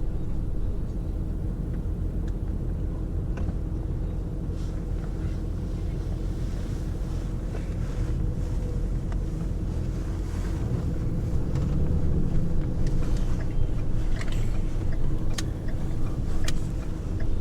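Steady low rumble of a moving vehicle's engine and road noise heard from inside the cabin, with a faint steady drone and a few light clicks. The rumble swells a little past the middle.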